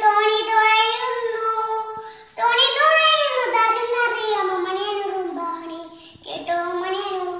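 A young girl singing unaccompanied, holding long, sliding notes. She breaks off briefly for breath about two seconds in and again near the end.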